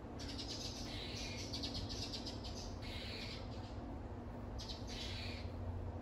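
Small backyard songbirds chirping in several short bursts of rapid, repeated high notes, with a steady low hum underneath.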